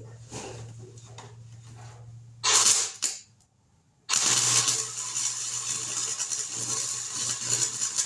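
Welding on sheet-steel truck-bed patches: a short loud tack about two and a half seconds in, then from about four seconds a continuous crackling weld bead, over a steady low electrical hum.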